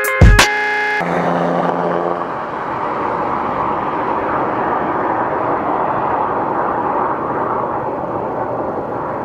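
Soundtrack music ends with a last drum hit in the first second, then a steady rushing of whitewater river rapids.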